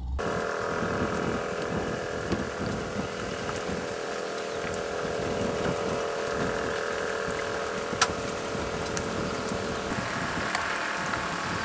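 Steady outdoor ambience of rain and wind noise, with a faint steady drone underneath that stops about ten seconds in, and one sharp click about eight seconds in.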